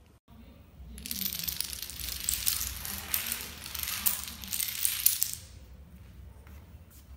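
A chain of dominoes toppling on a tile floor: a rapid, dense clatter of small blocks knocking into each other, starting about a second in and dying away about five and a half seconds in.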